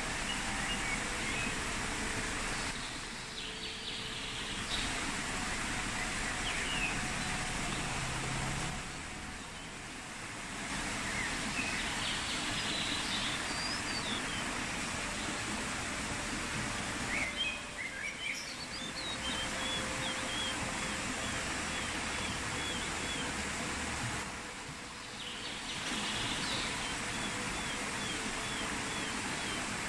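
Steady rush of a flowing stream, with small birds chirping over it; in the second half one bird repeats a short chirp several times a second.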